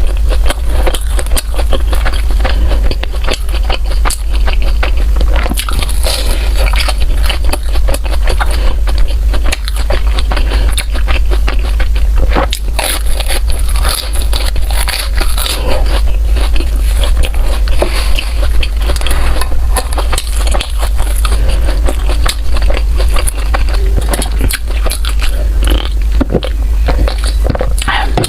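Close-miked eating: a mouth biting and chewing food, with dense, irregular small clicks, crackles and smacks, over a steady low hum.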